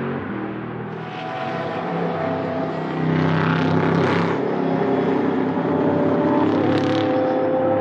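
V8 car engine running, its sound dipping a little in the first second and then growing louder from about three seconds in, with the pitch shifting slightly as the revs change.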